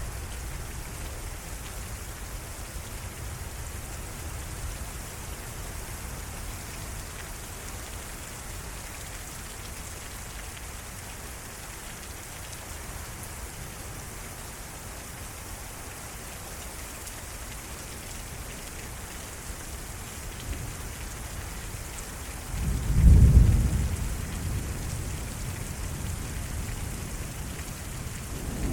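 Heavy rain falling steadily in a severe thunderstorm, with a loud clap of thunder about 23 seconds in that rumbles on and fades over several seconds; another roll of thunder begins near the end.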